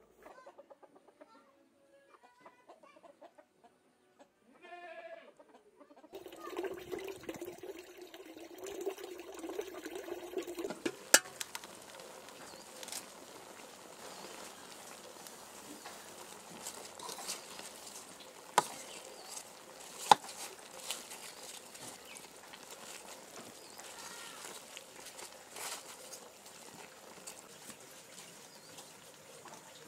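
Chickens clucking over a low, steady background, with three sharp knocks, the loudest sounds, about eleven seconds in and twice more a little later.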